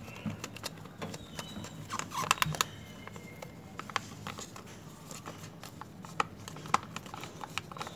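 Plastic straw stirring thick PVA glue in a thin plastic cup: irregular clicks and taps of the straw against the cup wall, with a louder cluster about two seconds in.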